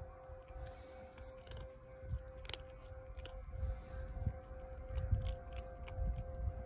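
Calico cat crunching dry kibble: irregular crisp crunches, over a faint steady hum and low rumbling.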